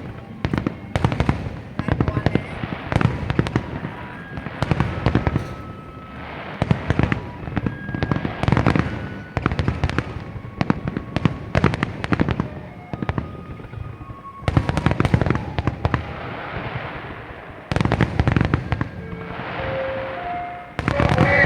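Aerial fireworks display: shells bursting in quick succession, sharp bangs with crackling between them.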